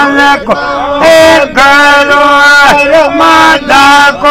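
Several men singing together in a chant, in long held notes about a second each, with pitch glides and short breaths between phrases.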